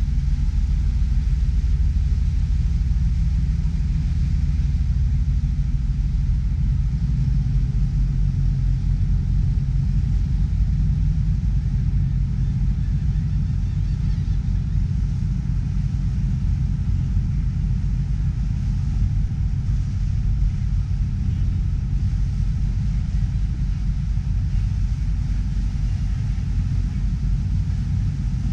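A ferry boat's engine running under way: a steady low rumble that holds an even level throughout.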